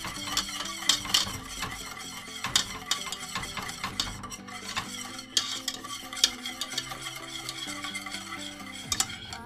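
Wire whisk beating a thin flour-and-oil paste in a stainless steel pot, a fast, irregular run of clicks and scrapes as the wires hit and rub the pot's sides and bottom.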